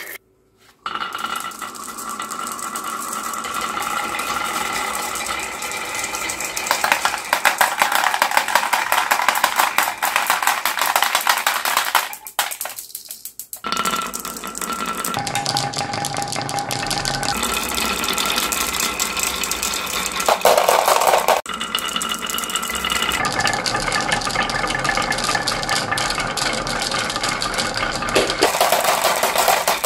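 Many glass marbles rolling down grooved wooden wave-track slopes, a dense continuous rattle of marbles clattering on the wood and clicking against each other. The rattle dips briefly about twelve seconds in.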